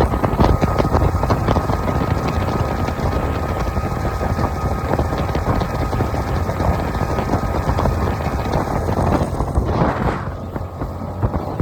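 Honda 60 hp four-stroke outboard motor running steadily, with wind buffeting the microphone; it runs cleanly on a newly replaced fuel pump. A brief rush of noise comes about ten seconds in, and the sound is a little quieter after it.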